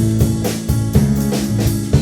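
A band playing an instrumental stretch of a song: a drum kit keeps a steady beat of about four strokes a second over guitar and sustained low notes.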